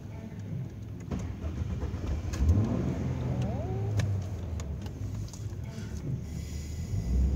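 Low, steady rumble of a car heard from inside its cabin, with a few light clicks and knocks.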